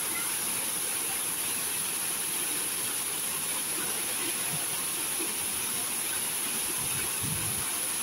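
Curtain fountain pouring water from the rim of its round canopy into a shallow pool: a steady, even rush of falling and splashing water.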